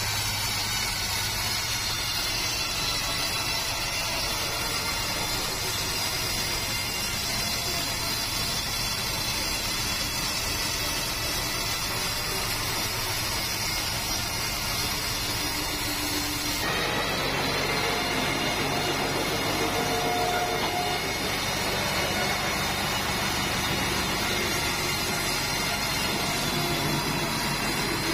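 A band sawmill runs steadily as its blade cuts lengthwise through a 5-metre keruing hardwood log. About 17 seconds in, the sound turns brighter and changes in character.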